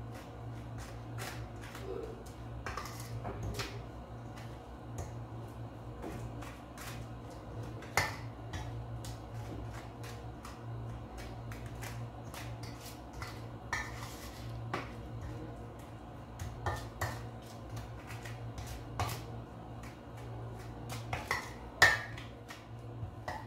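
Yogurt-and-spice marinade being mixed in a stainless steel bowl: irregular clinks and taps against the metal bowl, the sharpest near the end, over a low steady hum.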